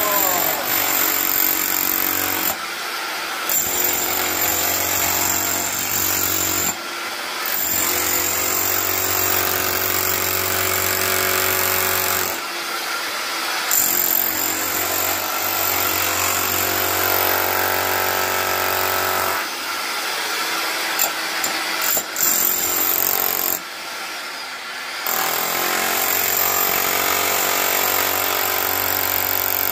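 Milwaukee K545S corded SDS-Max breaker running on its high setting, its chisel bit hammering into hard-packed earth and rock. It runs steadily and stops briefly about five times.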